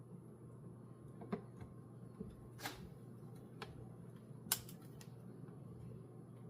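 A few light clicks and knocks, about five in all with the loudest near the end, over a faint steady low hum.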